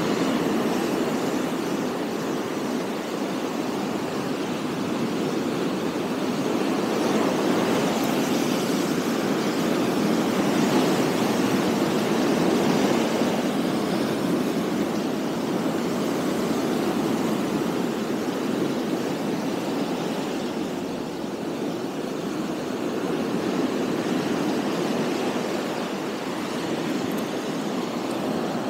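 Sea surf breaking and washing up a sandy beach: a steady rushing noise that slowly swells and eases.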